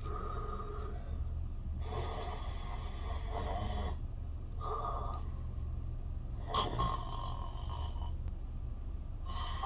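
A man snoring: a series of about five snores, several lasting a second or two, with short pauses between them.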